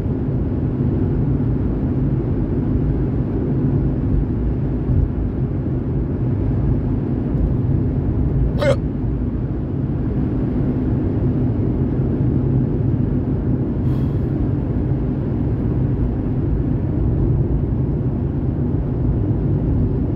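Steady car-cabin rumble of engine and road noise while driving, with one sharp hiccup about nine seconds in and a much fainter short click about five seconds later.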